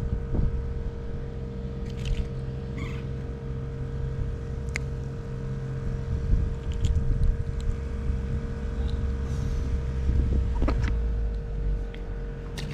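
A motor hums steadily, with a low wind rumble on the microphone and a few light clicks scattered through.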